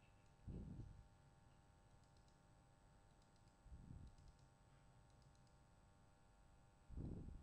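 Faint computer mouse clicks, several in quick pairs, over near silence, with three soft low thumps about 3.5 seconds apart.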